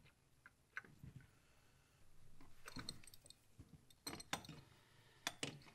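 Faint, scattered metallic clinks and clicks of a hand spanner against the engine while loosening the factory PCV valve from the valve cover, about half a dozen light taps spread through otherwise near silence.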